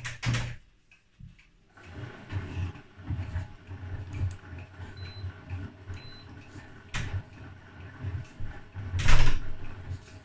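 1968 Scharpf Elektronica 2920 washing machine running a wash: its motor drives the drum in a pulsing hum, stops briefly about a second in, then runs again. Sudden rattling noises come through, the loudest near the end, which the restorer puts down to the magnetic clutch with its counterweight freewheel.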